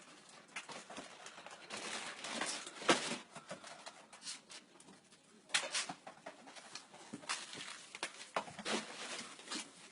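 Irregular rustling and knocking of grocery bags and their contents as dogs carry them in, with louder knocks about three seconds in and again near the middle and end.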